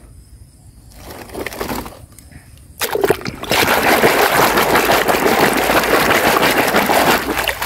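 A hand sloshing and splashing through muddy, foamy water in a plastic basin. It starts about three seconds in after a quieter stretch and then runs on steadily.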